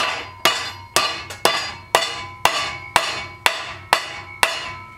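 Hammer striking a torch-heated strip of flat stock metal clamped in a bench vise, bending it over: about ten blows at roughly two a second, each with a short metallic ring, the last one about half a second before the end.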